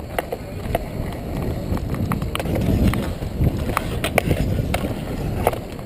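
Inline skates rolling and striding on a hard rink surface, close up, with a steady low rumble. Sharp clicks come now and then from a hockey stick handling the puck.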